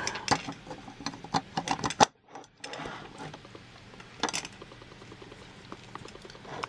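Handling clicks and knocks of a metal airsoft gearbox and its air hose being moved about on a table, busy over the first two seconds and ending in one sharp knock, then only a few scattered clicks.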